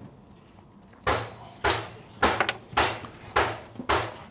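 Loud rifle shots fired in quick semi-automatic succession: six shots about half a second apart, starting about a second in, each followed by a short echoing tail.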